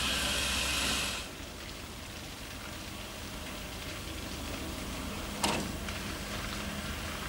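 Steam locomotive injector being started: a hiss of steam as the valve is opened, cut off sharply about a second in. Then a steady splashing rush of water and steam from the injector's overflow pipe while the injector primes, with a single sharp knock about five and a half seconds in.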